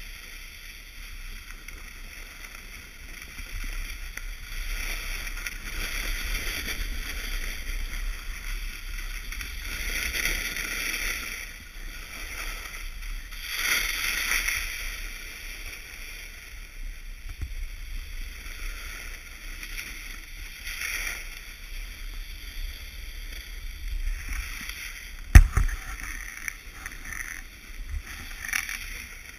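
Alpine snowboard edges carving and scraping over groomed snow, the noise swelling and fading with each turn. One sharp knock near the end.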